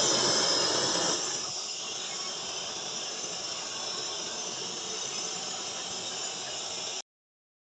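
Chicken sizzling in hot oil in a cooking pot, a steady hiss that is loudest in the first second and then settles. It cuts off abruptly about seven seconds in.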